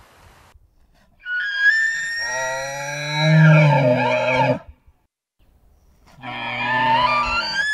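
Two bull elk bugles during the rut, each a loud high-pitched whistle with a low-pitched roar sounding beneath it. The first lasts about three seconds, with the roar coming in partway through; the second begins past the middle and is still going at the end.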